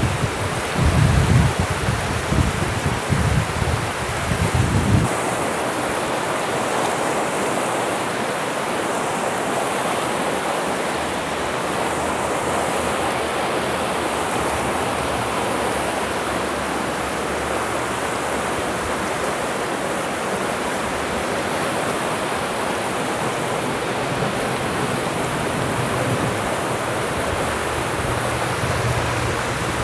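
Fast whitewater of the Upper Sacramento River rushing over rocks in a riffle: a steady, even hiss. For the first five seconds or so, low gusts buffet the microphone.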